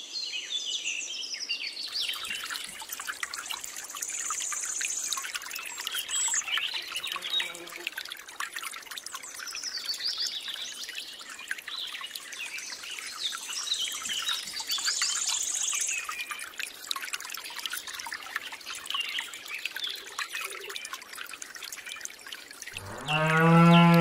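Birds chirping and singing throughout, over water trickling from a thin hose into a small pond. Near the end a cow moos once, a long low call.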